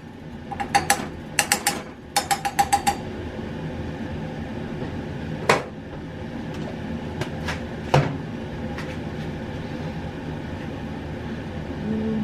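Sharp metallic clicks in two quick runs of four or five in the first three seconds, then a few single clicks, over a steady low kitchen hum.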